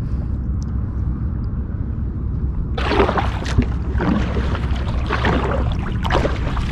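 Water splashing and lapping around a kayak over a steady low rumble, with irregular splashes and knocks growing busier about three seconds in.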